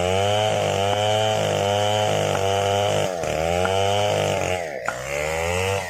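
Chainsaw cutting at high revs, its engine pitch dipping and climbing back three times.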